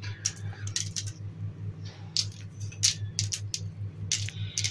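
Sesame seeds sprinkled by hand onto poğaça dough on a parchment-lined baking tray: light, irregular ticks and rustles of seeds landing, over a steady low hum.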